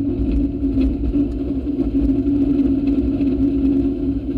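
Railroad speeder running along the track: a steady drone from its motor and steel wheels over a low rumble, with scattered clicks as the wheels run over the rails and crossing panels.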